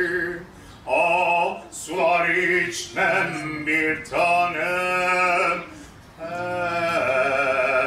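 A man singing unaccompanied, in phrases of long held notes with vibrato and short pauses for breath between them.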